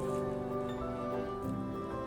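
Soft background music with sustained chords; the chord changes about one and a half seconds in.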